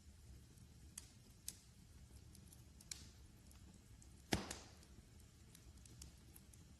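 Wood fire in a fireplace crackling quietly over a low rumble, with a few sharp snaps and one loud pop about four seconds in.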